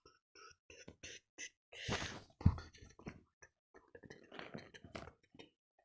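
Paper comic-book pages handled and pressed flat by hands: a rustle of the page about two seconds in and a sharp knock just after, among small breathy mouth sounds.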